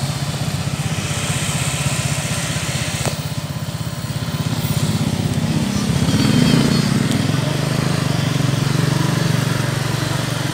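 Vehicle engines running steadily with a rapid low putter, louder as a motorcycle passes close about six seconds in.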